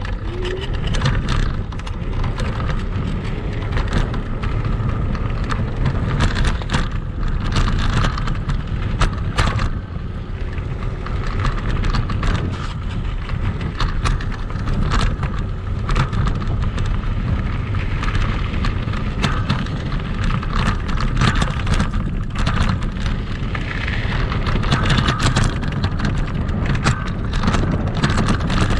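Kugoo Max Speed electric scooter ridden over rough, sandy ground: a steady low rumble with constant rattling and clattering from the scooter. The rattling comes from loose parts and play in the scooter, which shakes and clatters on rough terrain.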